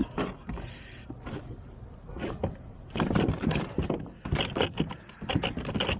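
A landed walleye thrashing in a plastic kayak makes a rapid, irregular run of knocks and slaps against the hull. The knocks come thickest in the second half.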